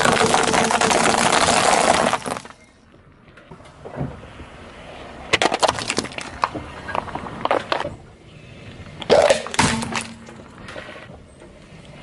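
Car tyre rolling over a pile of dry penne pasta, a loud dense crunching of snapping pasta for about two seconds. Later come scattered sharp cracks as the tyre crushes another item, with a louder burst of cracks near the end.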